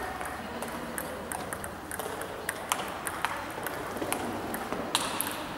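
Table tennis balls clicking sharply and irregularly off bats and tables during rallies at more than one table.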